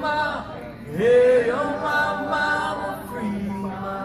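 Live rock band's singers chanting a line together in held notes, with one rising vocal swoop about a second in.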